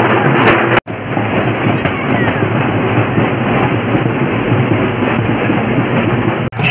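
Dense, loud din of a street procession: crowd voices mixed with a drum band playing, without a clear beat standing out. It breaks off for an instant just under a second in, and again near the end.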